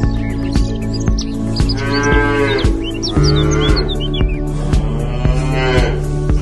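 Cow mooing: three long, drawn-out moos over background music with a steady beat.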